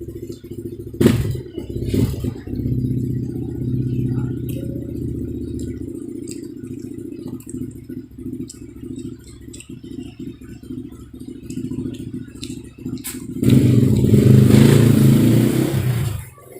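A small engine running steadily, with a few sharp clatters early on; it grows much louder and noisier for a couple of seconds near the end, then drops away.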